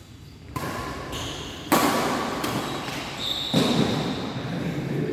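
Badminton rally in a reverberant sports hall: three sharp racket hits on the shuttlecock, a second or two apart, the second the loudest, each followed by echo from the hall. A brief high squeak sounds just before the third hit.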